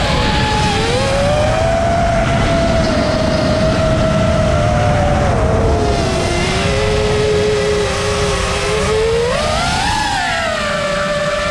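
5-inch FPV quadcopter's motors and propellers whining, heard from the drone itself, over a low rush of air. The pitch wanders with the throttle, sinks lower midway, then climbs sharply about ten seconds in as throttle is added.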